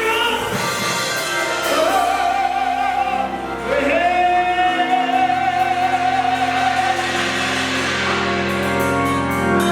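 Gospel singing with keyboard accompaniment. A voice slides up and holds one long note with vibrato through the middle, over sustained low chords.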